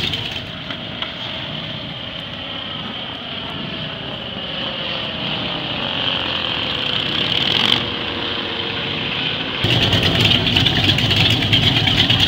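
Light propeller aircraft engine droning overhead, its pitch slowly falling as it passes. Almost ten seconds in, this gives way abruptly to the louder, rougher sound of hot rod engines idling.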